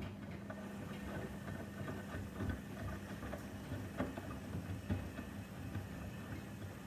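Washing machine running: a steady motor hum with irregular light clicks and knocks from the turning drum, with a few sharper knocks about two and a half, four and five seconds in.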